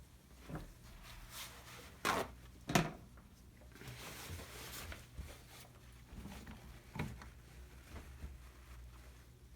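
Tools and metal engine parts being handled while the top end comes off a Suzuki RM125 two-stroke engine: scattered knocks and scrapes, with two sharp knocks about two and three seconds in, the second the loudest, and a steady low hum underneath.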